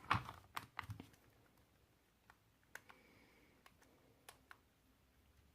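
New Qiyi Skewb puzzle being turned by hand: plastic clicks and clacks, a quick run of them at first, then single clicks spaced out.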